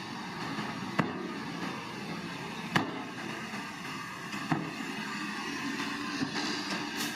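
Bulldozer running with a steady engine noise, cut by four sharp clanks spaced evenly about every second and three quarters.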